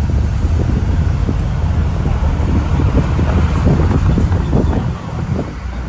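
Wind buffeting the microphone: a loud, ragged low rumble that eases a little near the end.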